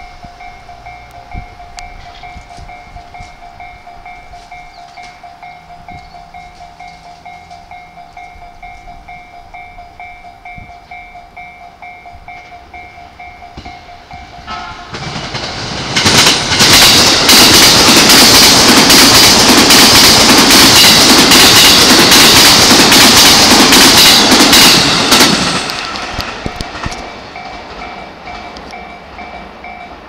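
Japanese level-crossing warning bell ringing steadily while a green-striped JR E233-series electric train passes close by, loud for about ten seconds in the middle, its noise building up and then fading as the bell carries on.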